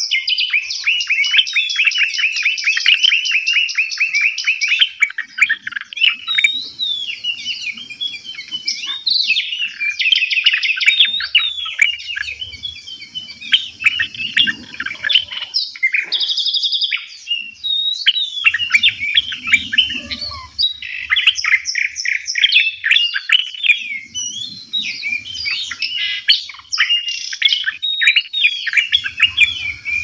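Several songbirds singing together: a dense, unbroken run of rapid trills, chirps and whistles.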